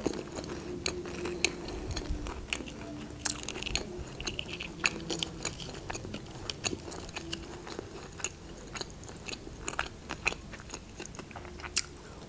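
Close-miked chewing of fried breaded mozzarella sticks: a steady run of small wet clicks and crunches, with a louder bite near the end.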